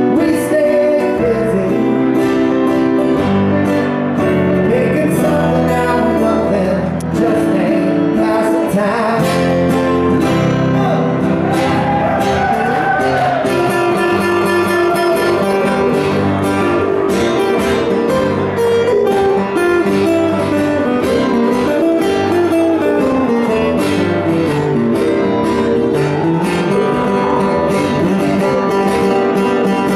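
Live acoustic band music: acoustic guitars strumming and picking, with a lead melody that bends and slides in pitch over them.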